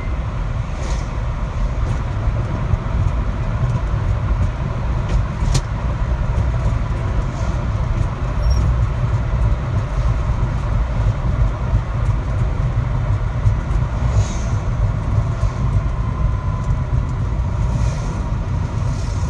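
Car driving at speed above 60 km/h, heard from inside the cabin: steady low road and engine rumble with a faint steady whine, the abnormal noise that the owner says appears over 60 km/h.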